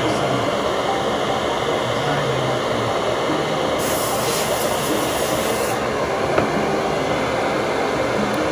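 Steady blowing noise of a running machine, with a sharper, higher hiss added for about two seconds about four seconds in, and a single light click a little later.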